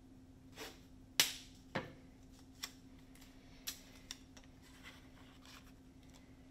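Sticky tape being torn and pressed on by hand: a sharp tearing snap about a second in, then a few lighter clicks and taps, over a faint steady low hum.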